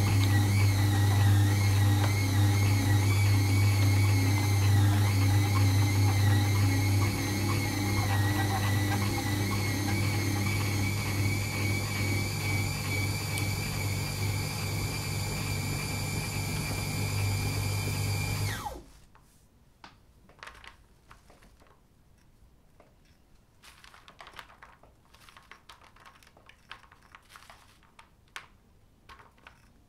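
Motor-driven meat grinder running steadily with a hum that wavers slightly, grinding milk chocolate with nuts; it cuts off suddenly about two-thirds of the way through. Faint rustles and clicks of the ground chocolate pieces being handled follow.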